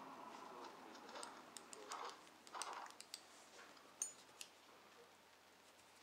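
Faint metallic scraping and clicking of a lock pick raking the pins of an old five-pin Lips padlock under tension, with scattered sharp clicks. The sharpest click comes about four seconds in, with a brief high ring.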